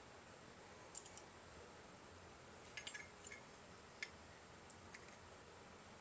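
A handful of faint, sharp metal clicks and taps as a Zippo lighter's insert and case are handled and fitted together.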